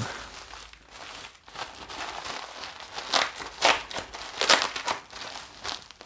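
Plastic bubble wrap crinkling and crackling as hands squeeze and pull it open, with a few louder crackles between about three and five seconds in.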